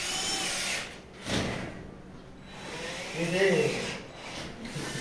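Cordless drill driver running in short bursts, its whine rising and falling, driving screws through plasterboard ceiling sheets into the furring frame. A single knock about a second in.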